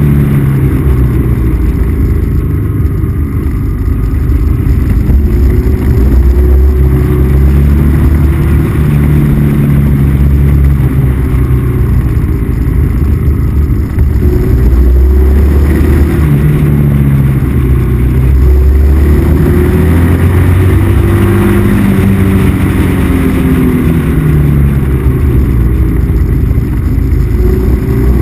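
Motorcycle engine heard from on board while climbing a winding road, its pitch rising and falling again and again as it accelerates out of bends and eases off, over a steady rushing noise.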